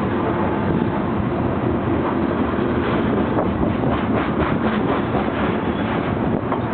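Freight train of trash cars rolling past with a steady rumble, the wheels clacking over rail joints in a quick run of clicks through the middle.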